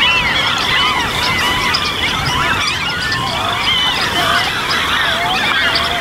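A dense chorus of many birds calling at once, overlapping rising and falling notes with no pause, as at a crowded nesting colony on a marsh.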